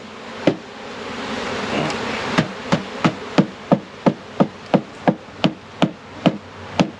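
Package of honeybees being knocked on repeatedly to shake the bees down out of the cage: a steady run of sharp taps, about three a second, over the hum of a mass of bees.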